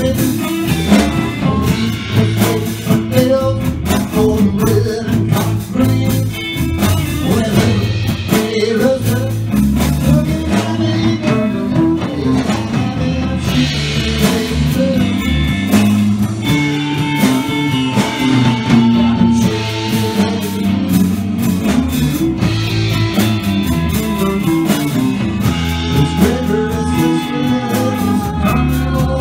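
Live blues band playing: electric guitar and electric bass over drums, at a steady, full level.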